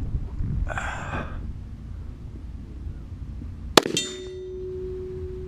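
A pistol shot about four seconds in, followed at once by a steel target plate ringing with a clear, steady tone; a second shot and ring come near the end.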